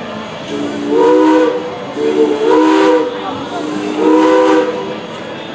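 Steam locomotive's chime whistle blowing a series of blasts, each a chord of several notes sounding together, the loudest about a second in, around two to three seconds in, and around four seconds in.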